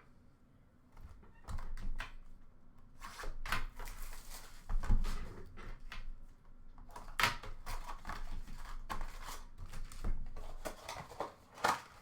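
Hands handling sports trading cards and card packs on a table: a string of short clicks, taps and rustles, with a duller thump about five seconds in.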